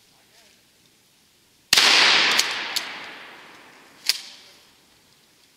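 A single gunshot about two seconds in, its echo dying away over about two seconds, followed by a second short, sharp crack a couple of seconds later.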